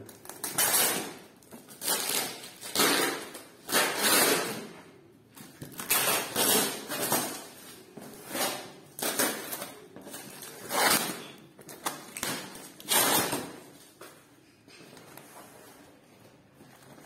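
Scissors cutting and tearing plastic packing tape wrapped around cardboard boxes: a series of short, noisy snips and rips, roughly one every second, growing quieter in the last few seconds.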